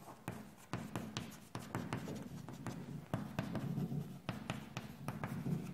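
Chalk writing on a chalkboard: an irregular run of short, sharp taps and scrapes as the letters are made.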